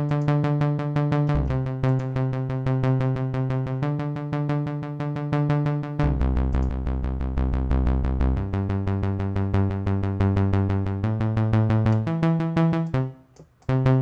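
Synthesizer playing a synthwave bass-and-chords pattern of fast, evenly pulsed repeated notes, the harmony changing every two seconds or so. It stops about a second before the end, then one short note sounds.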